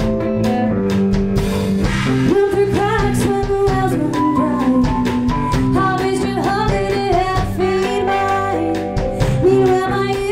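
A rock band playing live: drum kit, electric guitar and electric bass, with a voice singing over them.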